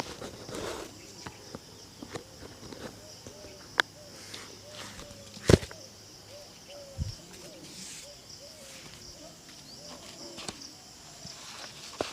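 Shoe-shine handwork: scattered light taps and rubbing on a shoe, with a sharp knock about five and a half seconds in and smaller knocks around it, over a steady high insect chirr.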